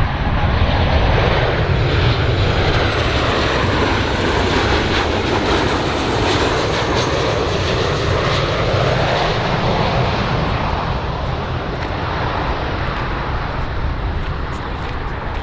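Large aeroplane's engines, a loud steady rushing noise that swells and eases slowly.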